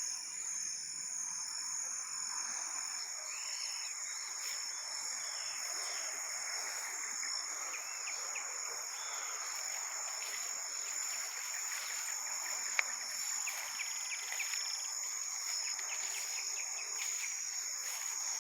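A steady chorus of insects, one continuous high shrill over a soft hiss, with a single sharp click about thirteen seconds in.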